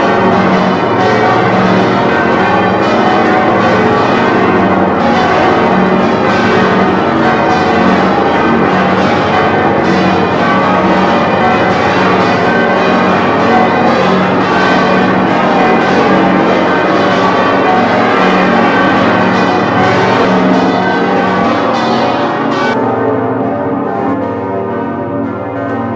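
Several church bells pealing together in a dense, continuous stream of overlapping strikes, with a steady low hum beneath. The strikes stop about 23 seconds in and the last tones die away.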